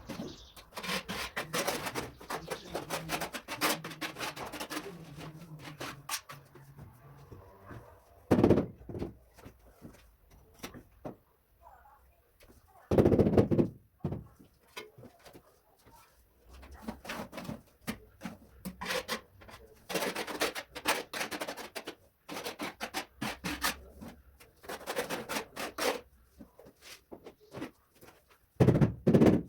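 Tile-laying work: a run of scrapes, taps and knocks of hand tools on tile and mortar, with heavier thumps about eight seconds in, around thirteen seconds and near the end.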